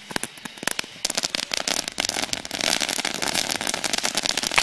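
Mass launch of hundreds of bottle rockets from a homemade multi-tube launcher: rapid pops and hissing launches that thicken, about a second in, into a dense, continuous crackling barrage.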